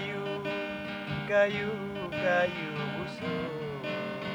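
A solo voice singing a Lampung-language song in A minor, held notes bending in pitch, over a strummed acoustic guitar.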